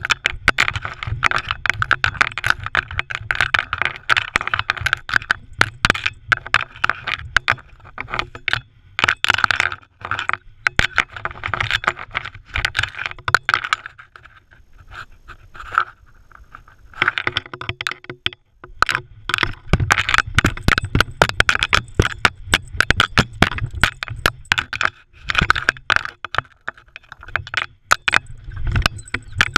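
Crushed rock crunching and scraping under a terrier's paws and against the dog-worn action camera, a dense run of cracks, clicks and low thuds. It thins out for a few seconds around the middle.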